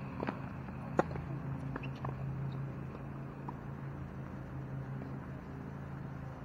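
Tennis racket hitting the ball on a serve about a second in, one sharp hit, followed by a few fainter knocks of the ball in play over the next two seconds, over a steady low hum.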